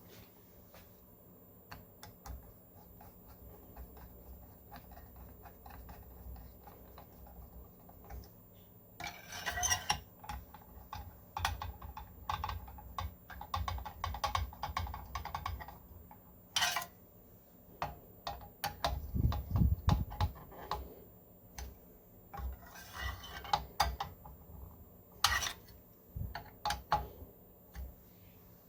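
PC components and small hardware being handled during assembly: scattered clicks and taps of plastic and metal, a couple of short scraping rubs, and a low thud about two-thirds of the way in.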